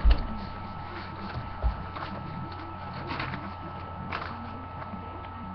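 Handling noise of a sheet of paper being moved about in front of a webcam: a couple of low knocks near the start and about a second and a half in, then a few short paper rustles, over a steady hum.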